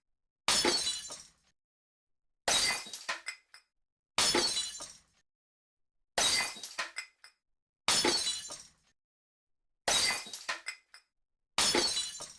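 Glass smashing seven times, about every two seconds: each a sharp crash followed by tinkling shards that die away within about a second, with dead silence between. The crashes are identical, one recorded smash repeated as a sound effect.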